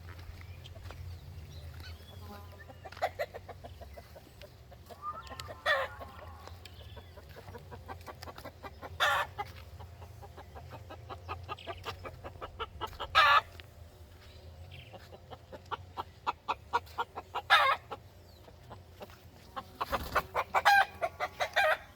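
Chickens clucking in quick runs, with a few louder squawks about every four seconds over a faint low hum.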